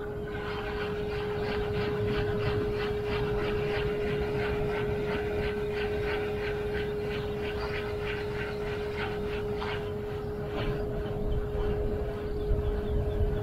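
Spinning fishing reel being cranked to retrieve a lure: an even ticking about three times a second that stops near the end, over a steady hum.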